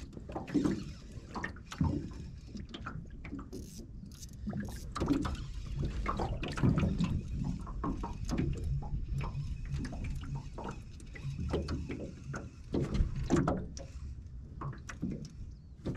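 Water lapping and sloshing against an aluminum boat hull, with small irregular knocks and splashes.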